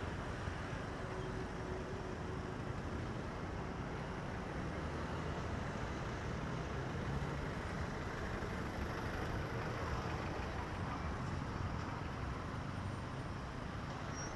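Road traffic on a busy main road: a steady rush of passing engines and tyres, swelling a little midway as vehicles go by.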